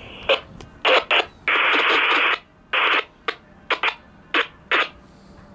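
Railroad scanner radio hissing and crackling in bursts of static as its squelch opens and closes, with one burst of hiss lasting about a second near two seconds in, then short crackles.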